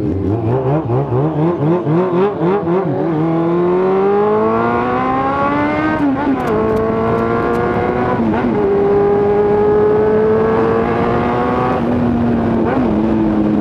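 Suzuki GSX750F's inline-four engine with a full aftermarket exhaust, heard from the rider's seat, pulling away from a stop and accelerating. The note rises, drops at upshifts about six and eight seconds in, climbs slowly, and eases off near the end.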